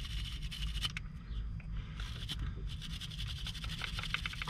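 A brush scrubbing a battery terminal clean: rapid, irregular scratching strokes, with a faint steady low hum underneath.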